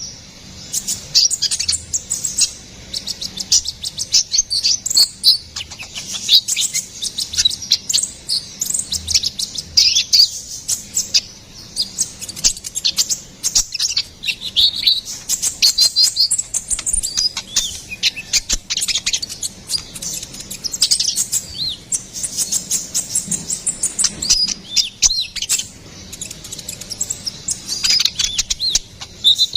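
Kolibri ninja (konin), a small sunbird, singing a fast, continuous stream of high chirps, trills and short rising and falling sweeps.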